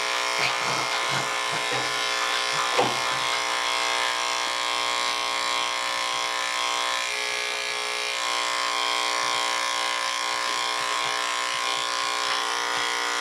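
Corded electric dog grooming clippers running steadily, a constant motor buzz, as they shave out matted fur.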